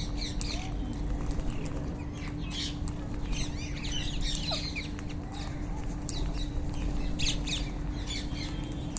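A flock of rose-ringed (Indian ringneck) parakeets calling, with many short, shrill squawks and chirps overlapping throughout, over a low steady hum.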